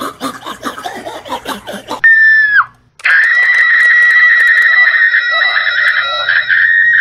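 Rapid, choppy voice sounds, then a loud, shrill scream about two seconds in that drops away in pitch. After a brief break, a long, shrill scream follows with a wavering pitch.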